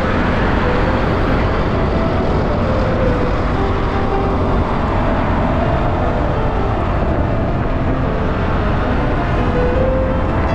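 Steady rush of wind and road noise from a motorcycle riding at speed on the highway, with a faint wavering hum in it.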